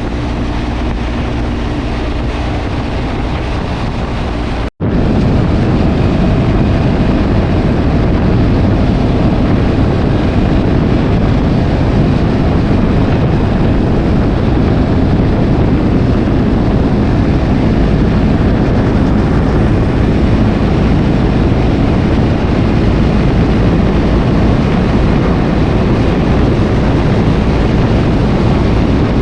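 Motorcycle engine running while riding at speed, mixed with heavy wind rushing over the microphone. The sound cuts out for an instant a little under five seconds in, then carries on steadily.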